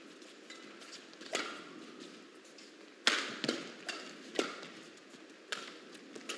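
Badminton rackets striking a shuttlecock during a doubles rally: about five sharp hits, irregularly spaced a second or so apart, two of them in quick succession about three seconds in.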